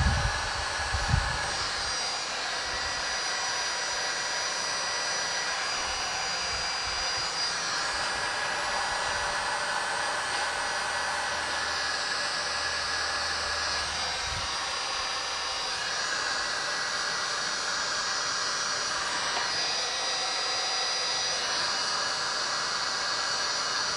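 Electric heat gun running steadily on its medium setting, blowing hot air onto heat-shrink tubing, with a faint high whine in the fan noise. A couple of soft thumps near the start.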